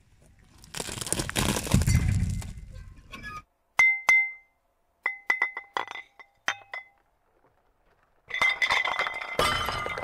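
Corn cobs crunching as a tractor tyre crushes them, cut off abruptly; then green glass bottles clinking together several times with a bright ringing tone. Near the end, a loud crunching crash of glass as the bottles are crushed under the tyre.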